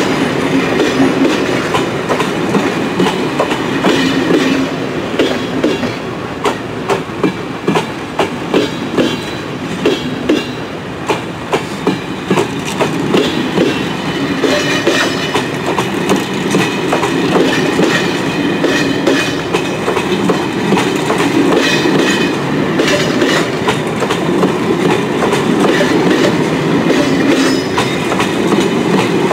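Hungarian MÁV-Start passenger coaches rolling past, their wheels clattering steadily over rail joints and points. A run of regular clacks comes about twice a second around the middle.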